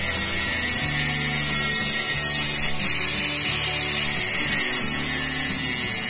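A power tool running steadily with a high-pitched whine, over background music.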